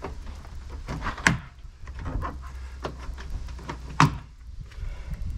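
Plastic trim clips on a Ford Kuga's inner tailgate trim panel snapping loose as the panel is pulled off by hand. There are sharp clicks, the loudest about a second in and about four seconds in.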